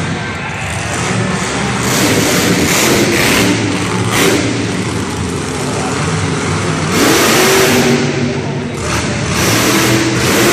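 Grave Digger monster truck's supercharged V8 revving hard as the truck accelerates across the dirt arena floor. The pitch rises and falls several times, with a long rising rev about seven seconds in.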